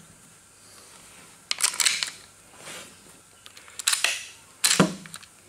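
Metal parts of a Winchester Model 150 .22 lever-action rifle clicking and scraping as it is handled during reassembly: a few separate sharp clicks spread through, the sharpest near the end.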